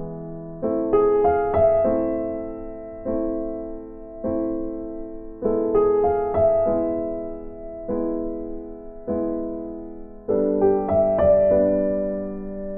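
Background music: electric piano playing slow chords. Each chord is struck and left to ring and fade, with short runs of quicker notes about a second, six seconds and ten seconds in.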